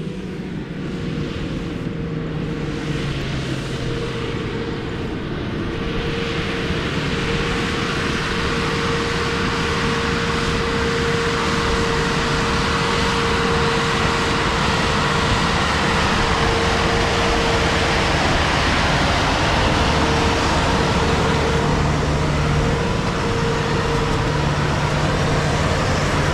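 Rice harvesting machine running steadily: engine and machinery noise with a held whine, growing louder over the first several seconds.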